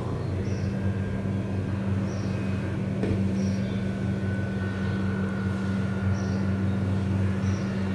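Steady low mechanical hum, with the faint sizzle of nimki dough starting to fry in lightly heated oil.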